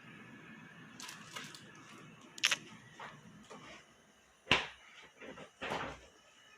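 A few sharp clicks and knocks of handling, spaced out, the loudest about four and a half seconds in.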